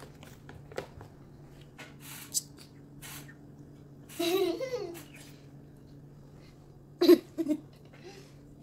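Short wordless vocal sounds from a young girl: one about four seconds in and a louder, shorter one about seven seconds in. A few light clicks fall in between, over a faint steady hum.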